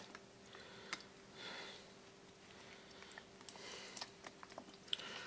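Rubbing alcohol squirted from a plastic squeeze bottle onto metal lathe-chuck jaws and parts in a steel pan: two faint, short hissing squirts with a few light clicks.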